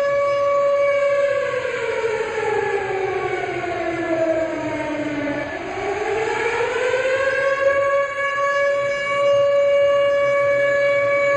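Civil defence sirens sounding for the moment of silence. One holds a steady tone while a second falls in pitch over about five seconds, then climbs back up to match it.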